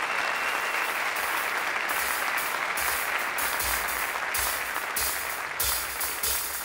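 Audience applause, dense and steady, dying away as a drum kit comes in about two seconds in with cymbal strokes and bass drum hits.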